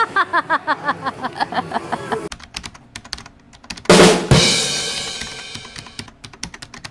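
Channel intro sound effects: rapid keyboard-typing clicks, with a loud hit about four seconds in followed by a ringing chord. Before the clicks begin, about two seconds of music with quick repeated notes.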